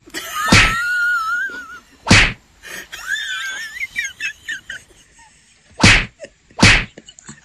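Two tabby cats in a standoff: wavering, high-pitched yowls broken by four loud, sharp hisses, the last two close together near the end.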